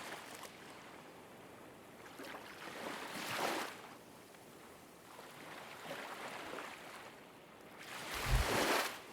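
Ocean waves washing in, a rush of surf that swells and fades four times, the last one near the end the loudest and deepest.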